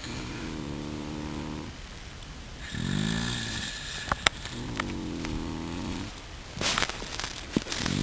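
Snoring: three long, drawn-out snores with short pauses between them, and a couple of sharp clicks about four seconds in.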